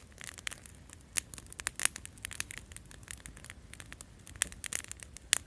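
Small wood campfire crackling, with irregular sharp pops and snaps, a few of them louder.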